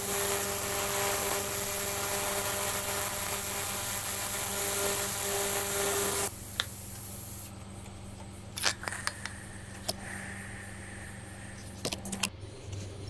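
TIG welder's aluminium arc buzzing steadily while welding thin aluminium beer cans, cutting off sharply about six seconds in. Afterwards a few light clicks and taps over a low hum that stops near the end.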